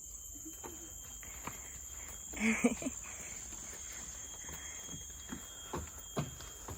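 Steady high-pitched chirring of forest crickets, with a few soft footsteps.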